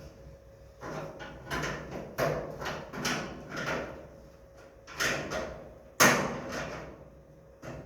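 A metal hand tool working the bolts on a garage door, making a series of short scraping clicks and knocks against the door hardware. A sharp, louder knock comes about six seconds in.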